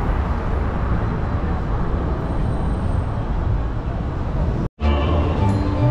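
Steady rumbling noise with a heavy low end. About three-quarters of the way through it cuts off abruptly, and music with steady notes starts.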